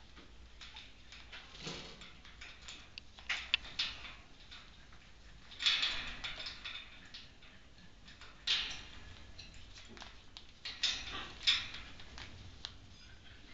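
Goffin's cockatoo working its beak on the metal top of its cage: irregular clicks and taps with a few short, louder scraping bursts.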